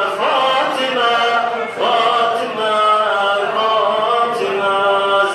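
A man chanting a mövlud, a devotional hymn for Fatima al-Zahra, solo into a microphone. He sings long held notes that waver and slide between pitches, pausing briefly for breath twice.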